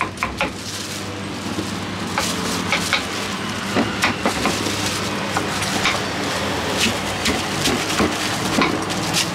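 Crinkle-cut knife chopping and cutting green fruit on a wooden chopping board: a quick run of knocks at the start, then scattered single cuts and scrapes as the fruit is peeled and sliced. A steady low hum runs underneath.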